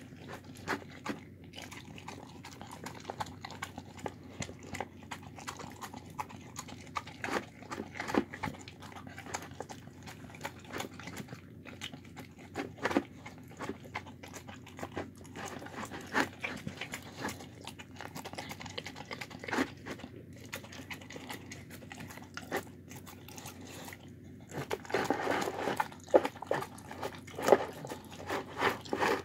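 A dog eating a chicken, rice, carrot and watermelon mix from a plastic bowl: irregular chewing, licking and smacking clicks, busier and louder near the end.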